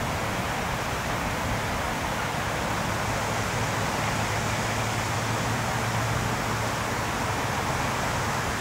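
Steady outdoor wind noise: wind rustling through the trees and rushing on the microphone, with a steady low rumble underneath.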